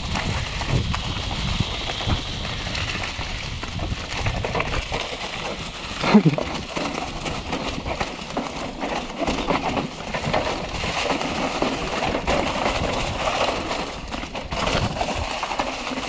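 Mountain bike rolling down a rough dirt singletrack: the tyres crunch over dry leaves and dirt while the frame and chain rattle over bumps, with a harder jolt about six seconds in.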